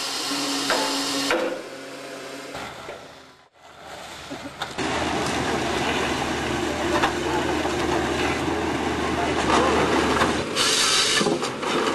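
Excavator-mounted Lako harvesting head feeding and debarking a eucalyptus log. The carrier's engine hums steadily while the rollers grind and scrape along the stem, with louder rasping bursts near the end.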